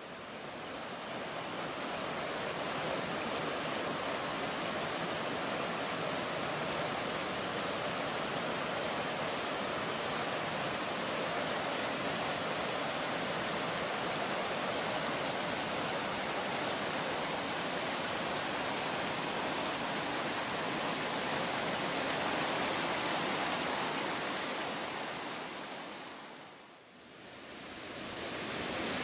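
Rushing water of a gorge stream cascading down rock steps and small waterfalls, a steady even rush. It fades in at the start and dips away briefly about two seconds before the end, then returns.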